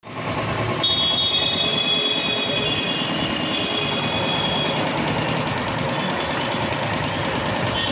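Belt-driven double-piston air compressor with a 1 hp single-phase Godrej electric motor running steadily, pumping up its tank. A thin high whine rides over it from about one second in until about four and a half seconds in.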